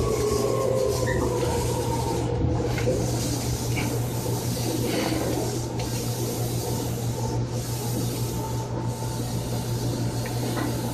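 Running sound inside a Seibu 2000 series electric train carriage. A motor whine falls in pitch and fades in the first second or two as the train slows, then a steady rumble continues under a constant low hum.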